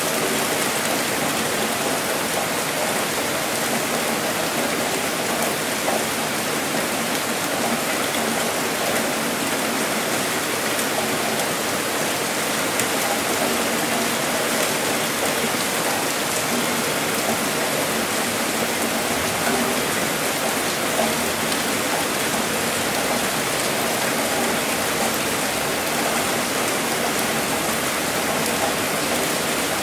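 Heavy rain falling steadily, a dense, even wash of drops with no let-up.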